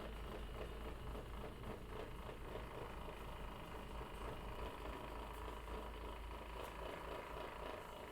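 Steady low hum with an even hiss and a faint constant tone, from a running machine.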